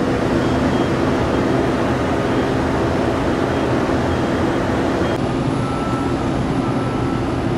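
Twin-engine jet airliner's engines running at takeoff power, a steady rumble as it climbs away. About five seconds in, the sound switches to an ATR 600 turboprop on its takeoff roll, its engines and propellers adding a steady higher whine.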